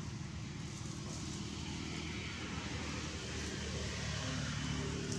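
A distant engine droning steadily, growing a little louder near the end.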